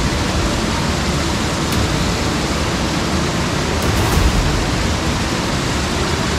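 Rushing water of a rocky stream cascading over boulders, a steady, even noise without breaks.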